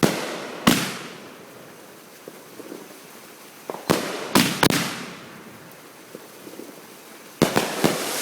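A 500-gram consumer firework cake firing, its shells bursting in loud bangs: two near the start, three around the middle, and a quick cluster near the end, each dying away in a rumbling tail.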